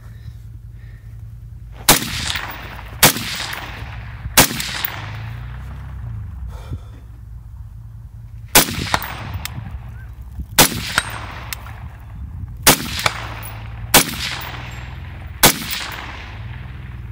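AR-15 rifle firing eight single aimed shots, spaced irregularly one to four seconds apart, each followed by a long trailing echo. A steady low hum runs underneath.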